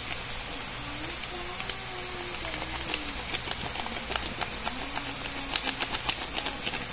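Garlic and masala sizzling in hot oil in a frying pan: a steady hiss with scattered light clicks of a spoon against the pan, which come more often in the second half.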